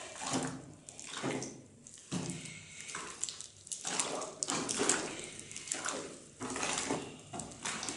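Long stick stirring a thick, foamy dishwashing-liquid mixture in a plastic drum, making rhythmic swishing and sloshing strokes a little more than once a second.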